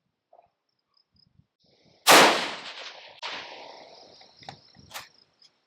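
A single rifle shot about two seconds in: a sharp crack that rolls on as an echo for a second or more, with a second swell of echo a second later. Two short sharp clicks follow near the end.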